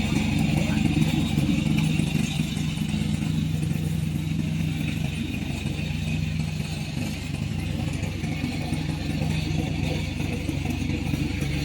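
Engine of a remote-controlled tracked lawn mower running steadily at an even speed.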